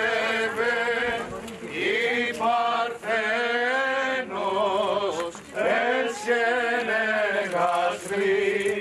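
Male voices chanting a Greek Orthodox wedding hymn in long, wavering held notes, pausing briefly a couple of times. This is the hymn sung as the crowned couple are led around the table by the priest.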